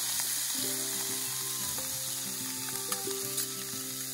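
Diced hash sizzling on the flat steel plate of a Blackstone Adventure Ready propane griddle, a steady frying hiss, with a metal spatula scraping and tapping a few times. Background music plays underneath.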